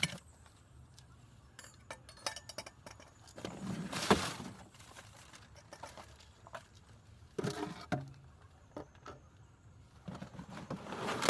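Scattered light metallic clinks and knocks from objects being handled, with louder rustling spells about four seconds in and again about seven seconds in.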